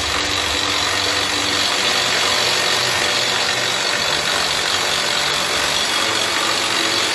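Resemin Raptor 55 2R long-hole drilling rig running: a loud, steady machine noise with no separate strokes or pauses.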